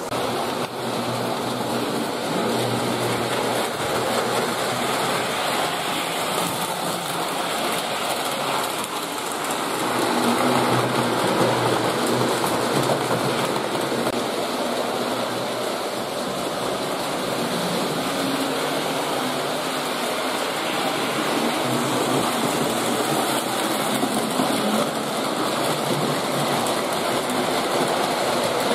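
Postwar Lionel model trains running on three-rail tubular track: a steady mechanical run of electric motors and metal wheels on the rails, a little louder around ten seconds in.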